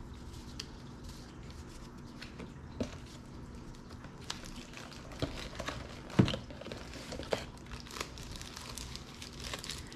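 Packaging being handled and unwrapped: crinkling and rustling with scattered small clicks, and a sharper knock about six seconds in.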